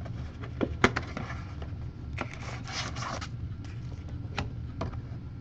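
Hands opening a small Panini Black trading-card box and sliding its contents out: a few sharp taps and clicks, the loudest about a second in, and about a second of scraping slide in the middle.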